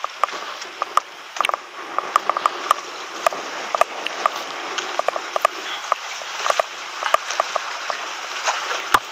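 Water splashing and lapping, with many sharp, irregular clicks and ticks scattered through it.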